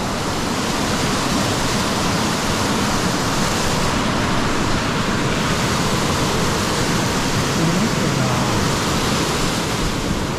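Waterfall in a mountain stream, water rushing steadily.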